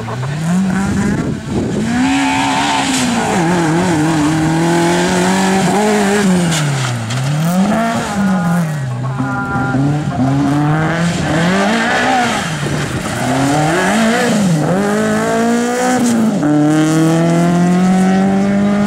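A rally car's engine revving hard, its pitch climbing and dropping again and again as the driver accelerates, lifts off and shifts through a twisty section, then a long steady climb in revs near the end.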